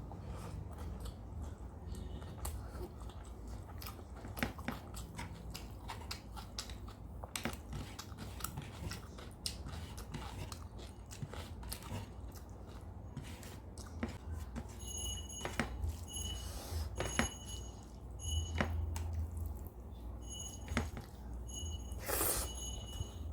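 Close-miked eating: wet chewing and biting of a rice-and-curry meal with occasional crisp crunches and many small mouth clicks, over a low steady hum. In the second half a faint high tone repeatedly switches on and off.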